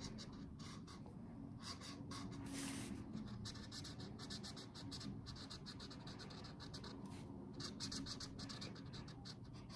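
Marker drawing on cardboard: a faint run of short, quick scratchy strokes.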